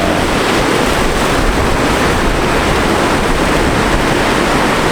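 Steady rushing of sea surf and wind, with wind buffeting the microphone.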